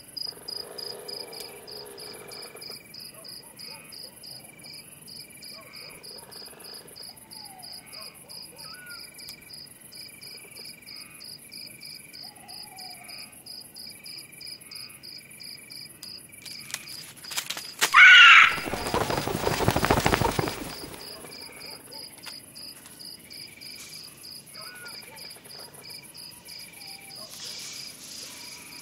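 Night-time forest ambience: crickets chirping in a fast, steady pulse, with occasional short calls. About two-thirds of the way through, a louder sound lasting about three seconds breaks in: a brief rising, wavering cry followed by a rushing noise.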